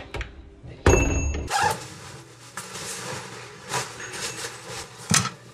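A handful of knocks and clunks, the loudest about a second in, with a short high beep at the same moment.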